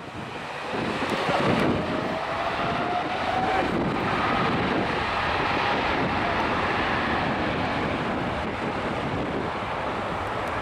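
Strong wind buffeting the microphone over the steady jet noise of an approaching Airbus A330-200, with a faint rising whine in the first few seconds.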